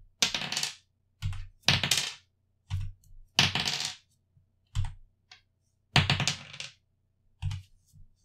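A six-sided die rolled four times, each roll a clattering burst of about half a second, each followed about a second later by a single computer keyboard keystroke entering the number that came up.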